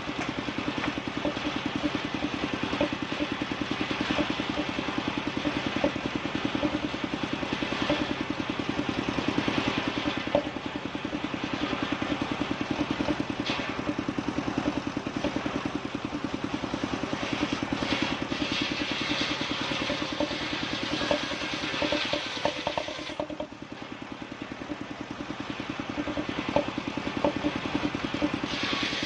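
Engine-powered sawmill saw running steadily, its motor beating fast and evenly underneath. Over it, the hiss of the blade cutting bayur timber rises and falls, easing off briefly about three-quarters of the way through.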